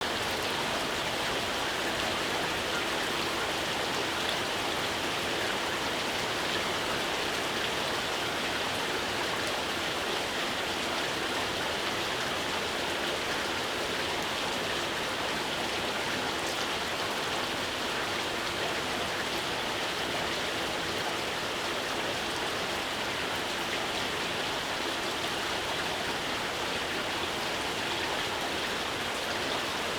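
Steady rainfall: an even hiss of rain falling, with no thunder or distinct drips standing out.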